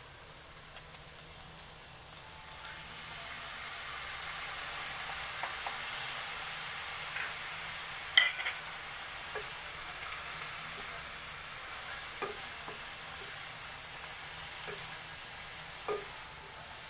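Shredded chicken sizzling as it fries in a stainless steel pan, the hiss growing louder a couple of seconds in. A spatula stirring it scrapes and knocks against the pan a few times, sharpest about eight seconds in.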